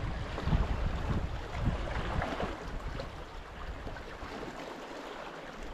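Wind buffeting the microphone, with sea water washing against the rocks; the gusts ease after about three seconds.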